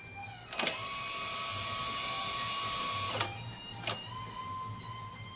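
AKAI GX-F31 cassette deck's tape transport mechanism working: a click as it engages, a steady motor whir for about two and a half seconds that stops abruptly, then another sharp mechanical click.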